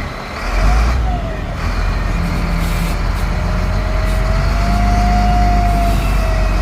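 Heavy diesel construction machine running under load, a deep rumble that comes up sharply about half a second in, with a whine that rises and falls in pitch over it.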